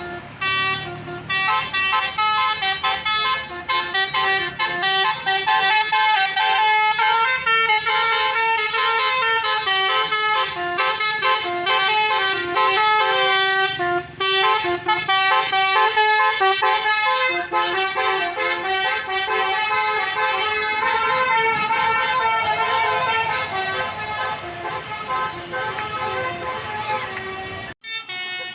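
Tour bus's telolet basuri, a multi-trumpet electric air horn, playing a long melody of quick changing notes. It breaks off abruptly near the end.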